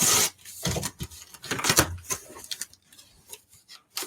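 A knife blade cutting through packing tape and cardboard on a shipping box, with scratching, rustling and clicks of the box being handled. The loudest scrape comes right at the start, then shorter scratches follow irregularly and thin out toward the end.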